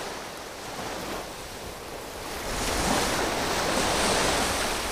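Sea surf washing in among shoreline boulders, a steady rushing hiss that swells louder about halfway through, with some wind.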